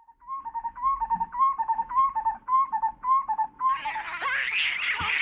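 Baboon calls: a two-part call, a short rising note followed by a lower one, repeated about seven times at roughly two a second. About four seconds in, a dense, shrill din of many voices takes over.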